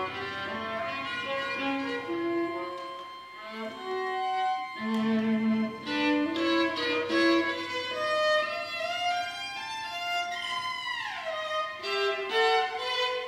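Contemporary chamber-ensemble music with violin prominent among the bowed strings, playing a string of held and short notes, with a falling glissando about eleven seconds in.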